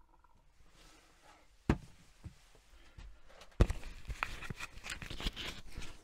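Wooden cupboard panel being handled and fitted back into a motorhome's basin cabinet. One sharp knock a little under two seconds in, then from about halfway a run of knocks, clicks and scraping.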